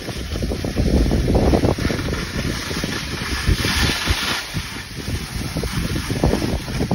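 Wind buffeting a phone microphone while skiing downhill, with skis hissing over packed snow; a louder scrape of ski edges comes a little past halfway.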